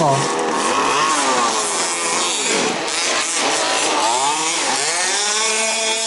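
Several 1/5-scale two-stroke petrol RC buggy engines racing, revving up and easing off so their overlapping pitches keep rising and falling.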